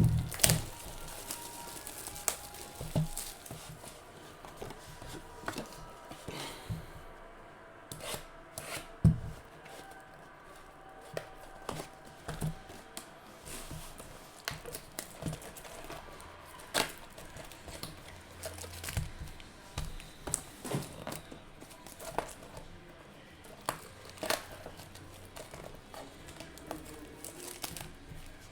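Hands tearing open foil trading-card packs and crinkling the wrappers, with irregular sharp clicks and knocks as boxes and cards are handled on a table.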